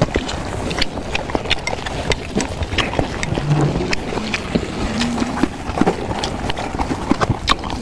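Close-miked chewing and mouth smacks while eating a rice meal: a dense, irregular run of wet clicks and smacks, with two short low hums near the middle.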